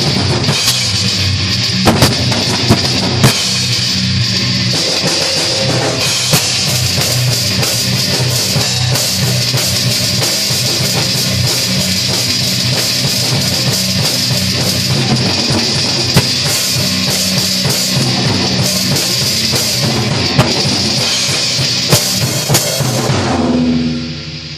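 Live rock jam: a drum kit and an electric guitar playing loud and steady, then stopping about a second before the end, leaving one low note ringing.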